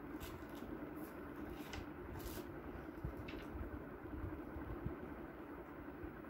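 Ballpoint pen writing on paper: a few short, faint scratching strokes, mostly in the first half, over a steady low background hum.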